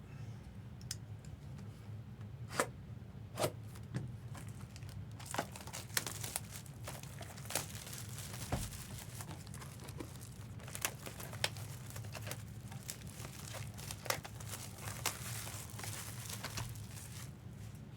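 Trading card packaging being torn open and crinkled, with scattered sharp clicks and taps, densest through the middle and latter part, over a low steady hum.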